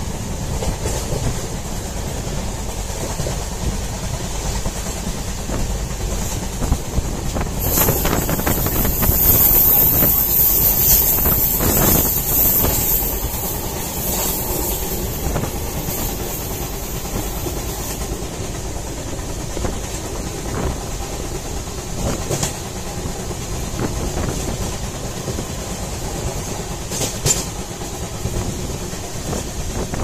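Train running along the track, heard through an open carriage window: a steady rumble of wheels on rails with rushing air, growing louder and hissier for a few seconds from about eight seconds in, and a couple of sharp clacks near the end.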